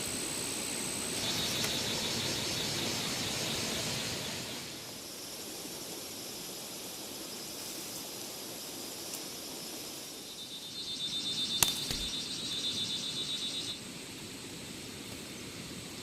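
Outdoor ambience with two bursts of high-pitched, rapidly pulsing trills, each lasting about three seconds, and a single sharp click during the second burst.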